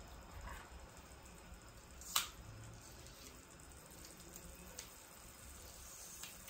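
Cheese slice melting in a hot non-stick frypan over a butane burner: a faint low steady hiss, a single sharp pop about two seconds in, and a couple of fainter ticks later.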